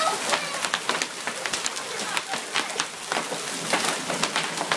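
Hailstones pelting a swimming pool and its surroundings: a dense, irregular patter of sharp pops and splashes over a steady hiss, like popcorn popping.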